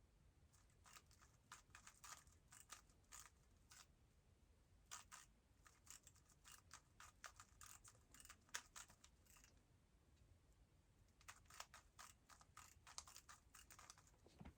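Faint, rapid clicking of a Moyu WRM 2020 speedcube's layers being turned by hand, in quick flurries of turns with a short pause about ten seconds in.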